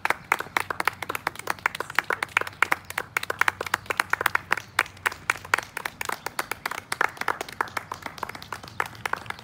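A few people clapping, a continuous run of distinct hand claps.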